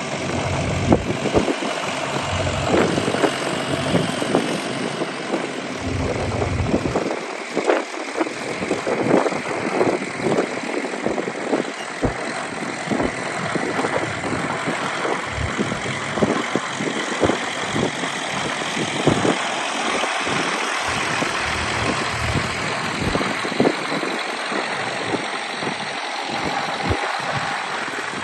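International B-275 tractors' diesel engines running while ploughing, with frequent irregular clicks and knocks over the engine noise.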